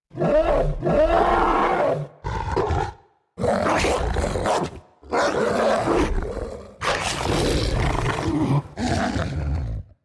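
Film werewolf creature sound effects: about six separate rough, snarling roars, each a second or two long, with short silent gaps between them.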